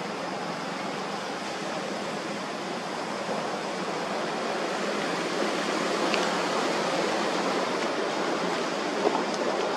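Steady outdoor rushing noise with no pitch, growing slightly louder about three seconds in, with a short click near the end.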